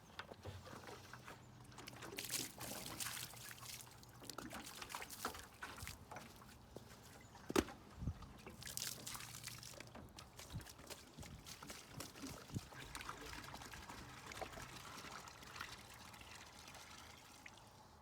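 Water pouring and trickling, with scattered small knocks and one sharper knock about eight seconds in.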